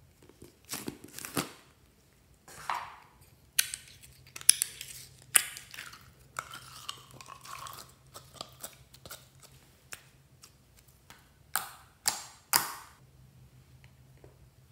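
Handling sounds of a plastic slime tub: the lid twisted off, then thick red slime pulled out of the tub and dropped into a glass dish. A string of short crinkles, clicks and sticky slime sounds, with three sharper ones near the end.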